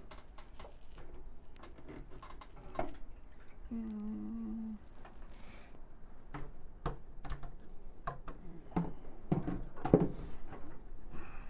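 Scattered light clicks and knocks of hands handling and seating a motorcycle fuel tank, with a short low hum about four seconds in and the loudest knock near the end.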